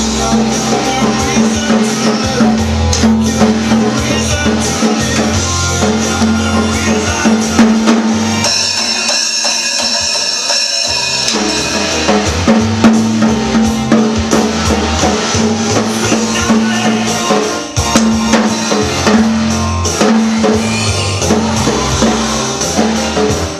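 A toddler banging unevenly on a First Act children's drum kit, over a recorded song playing loudly. The song's low end drops out for a few seconds near the middle.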